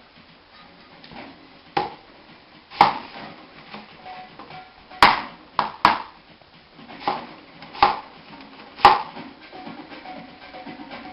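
Chef's knife cutting an onion on a plastic cutting board: several sharp knocks of the blade hitting the board, irregularly spaced, with a quick pair near the middle.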